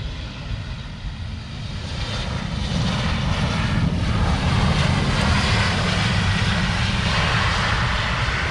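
Jet engines of a Lion Air Boeing 737 speeding along the runway, their roar building over the first few seconds and then staying loud, with a short falling whine about four seconds in as it passes.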